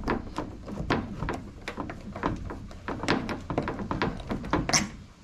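Irregular clicks, taps and light knocks of hands working on the blower's swivel tube and collar, with one sharper snap near the end.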